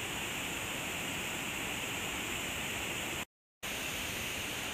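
Steady rush of a waterfall and creek water, broken by a brief moment of total silence about three seconds in.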